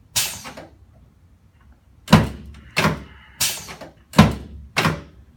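A series of sharp thumps on a chiropractic treatment table under quick adjusting thrusts. There is one near the start, then after a pause about one every two-thirds of a second.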